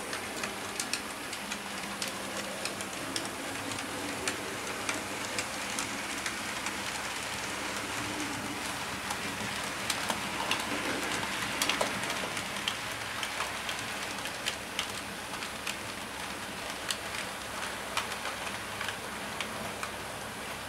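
HO-scale model freight train in motion: the Hornby Jouef 141 TA steam locomotive model's electric motor whirs and the wagons' wheels roll with a steady rushing sound. Irregular sharp clicks come as the wheels cross rail joints and points.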